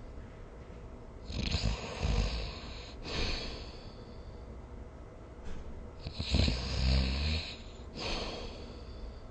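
A sleeping person snoring: two breaths about five seconds apart, each a low rattling snore followed by a hissing breath.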